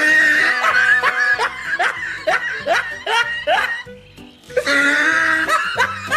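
Laughter over background music with a steady beat: a run of short rising 'ha' sounds, about two or three a second, over a held high tone. It breaks off about four seconds in and starts again.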